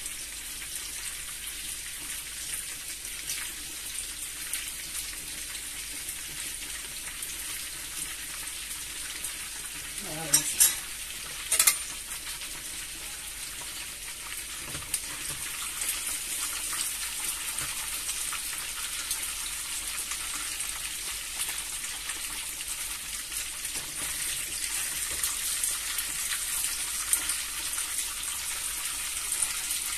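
Food frying in hot oil in a frying pan: a steady sizzle with fine crackling, growing a little louder over the second half. Two short sharp knocks stand out about ten and twelve seconds in.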